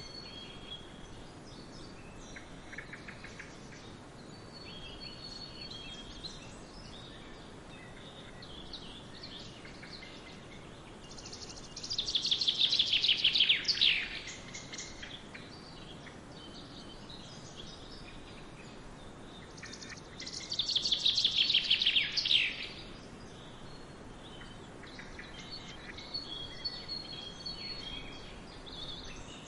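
Songbirds chirping over a steady faint hiss, with scattered short calls throughout. Twice a bird gives a loud song of rapid notes falling in pitch, each about two seconds long, first about twelve seconds in and again about twenty seconds in.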